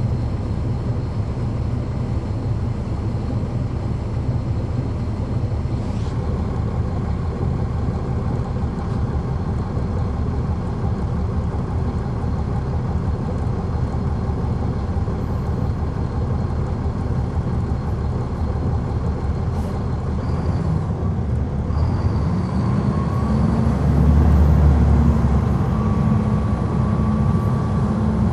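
Caterpillar C13 ACERT diesel engine of a NABI 40-SFW transit bus, heard from inside at the rear of the bus, running with a steady low rumble. About three-quarters of the way through it gets louder and deeper as the bus pulls harder.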